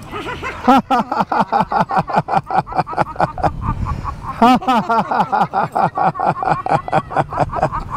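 Several people laughing out loud together in a rapid, rhythmic 'ha-ha-ha', a deliberate group laughing exercise (laughter yoga). The laughter swells louder about a second in and again around the middle.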